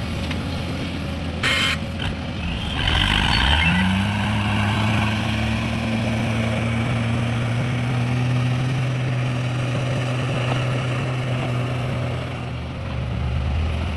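Heavy diesel engine running, with a short hiss about a second and a half in. A few seconds in, the engine revs up and holds a higher, steady pitch for several seconds, easing off near the end.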